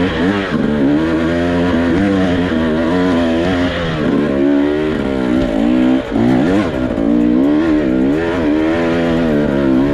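KTM 300 XC two-stroke dirt bike engine revving up and down as the throttle is worked over rough trail, its pitch climbing and dropping every second or so, with a brief lull about six seconds in.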